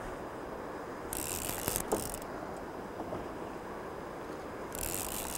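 Shimano Tyrnos 30 lever-drag baitcasting reel ratcheting in two bursts, each about a second long, one about a second in and one near the end, as a hooked jaú catfish pulls against the line.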